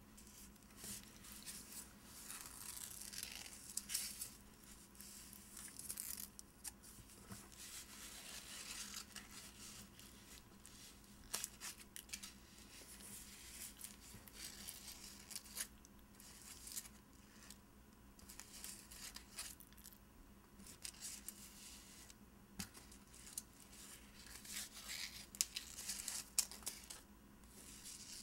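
Fingernails scratching and tracing over shiny gift wrap around a packaged soap. A faint, crinkly scratching with small clicks that comes and goes.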